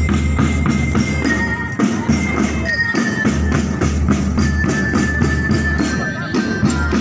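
Marching drum band playing: snare and bass drums keep a fast, steady beat with cymbal crashes, and a few high held notes sound over the drums.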